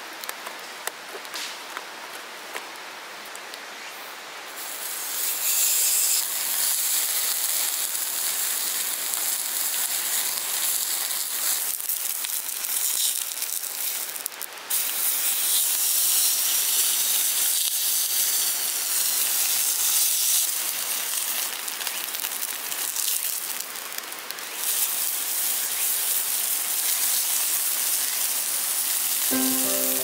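Steak sizzling loudly on a square iron griddle plate over a wood fire, a dense high hiss that starts suddenly about four and a half seconds in. Before that the campfire crackles softly.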